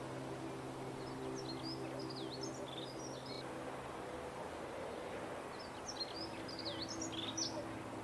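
Dunnock singing two short, fast, high-pitched warbling phrases a couple of seconds apart, over a steady low hum.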